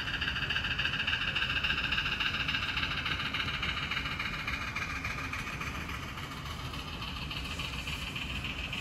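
HO scale model train, an Athearn Genesis Rio Grande ALCO 4-6-6-4 Challenger steam locomotive hauling freight cars, rolling past on the layout track. It makes a steady hiss and rumble, loudest in the first couple of seconds as the locomotive goes by, then a little softer as the freight cars follow.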